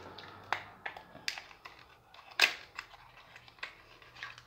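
Small paperboard nail-polish box being opened by hand: a series of light clicks and taps as the cardboard flaps are worked open, the sharpest about two and a half seconds in.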